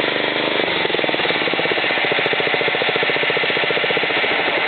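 Engine of a John Deere JX85 self-propelled lawn mower running steadily after a restart, with a fast, even pulse.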